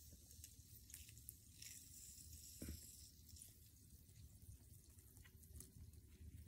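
Near silence, with faint drips and small ticks as a lemon is squeezed by hand into a plastic spray bottle of water, and a soft knock a little under three seconds in.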